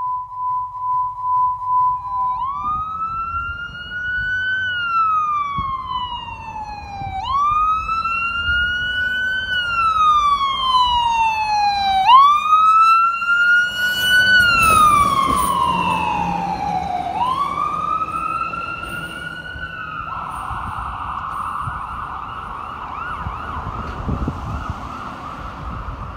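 A steady electronic beep for about two seconds, then a fire engine's electronic siren wailing, slowly rising and falling about every five seconds. The engine's rumble swells as the truck passes near the middle, and about twenty seconds in the siren switches to the rapid, fast-warbling phaser tone.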